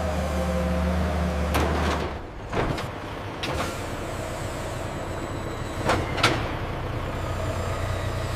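A vehicle engine runs with a steady low hum that cuts off about two seconds in. Several short whooshing sweeps follow.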